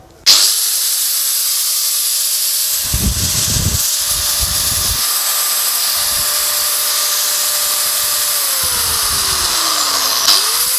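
Hitachi G10SS2 4-inch 600 W angle grinder switched on with no disc fitted, spinning up to a steady whine and running free. About eight seconds in it is switched off and its pitch falls as it coasts down, then it is switched on and spins up again near the end. Its motor runs smoothly, without vibration.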